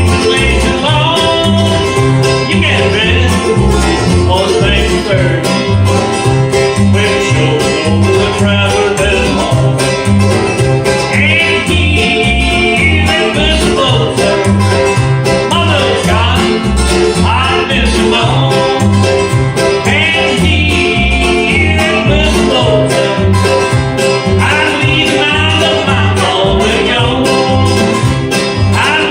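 Bluegrass band playing, with banjo and guitar picking over a steady alternating bass line and sliding melody lines above.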